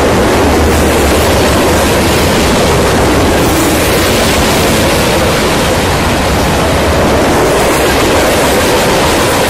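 Freight train's covered hopper cars rolling past close by: a loud, steady rumble of steel wheels on rail.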